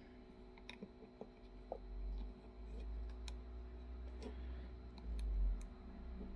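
Faint, scattered small clicks and low handling rumble from fingers working plastic parts and a circuit board as the board is pressed onto its connector in a gimbal housing.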